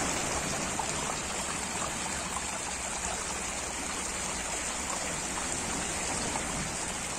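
Small waves breaking and washing over a pebble shore: a steady rush of surf.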